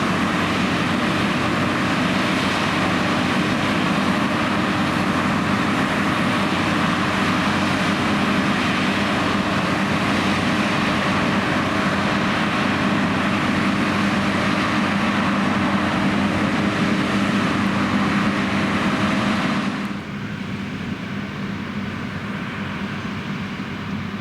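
John Deere X9 1100 combine harvester running steadily while combining, a constant machine drone with a low hum. About 20 seconds in the sound drops suddenly to a quieter, duller drone.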